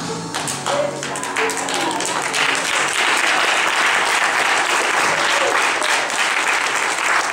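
Audience applauding as the song ends: the last of the music fades in the first second or two, then steady clapping takes over, with a few voices among it.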